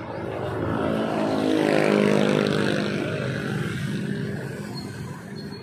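A motor vehicle passing close by: its engine swells to a peak about two seconds in, then fades away with a slight drop in pitch.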